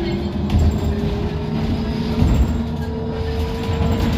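Inside a Škoda 25Tr Citelis trolleybus under way: the electric traction drive's whine climbs slowly in pitch as the vehicle gathers speed, over a low rumble of road and body noise.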